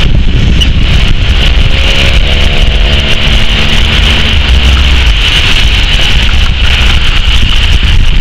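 Beechcraft King Air 350's twin PT6A turboprop engines at takeoff power as it rolls down the runway and lifts off: a deep, steady rumble with a high, even whine over it, and faint gliding tones about a third of the way through.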